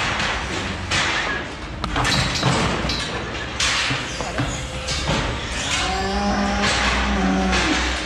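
Clattering and thuds from a steel cattle crush and its gates as a cow walks out of it, hooves striking the floor about once a second. Near the end a cow moos once in a long call.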